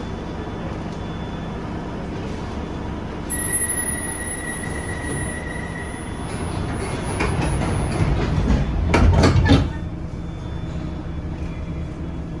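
London Underground Bakerloo line 1972 Stock train running on the rails: a steady rumble, with a thin high wheel squeal setting in about a third of the way through, then a louder spell of rail clatter near the three-quarter mark that cuts off suddenly.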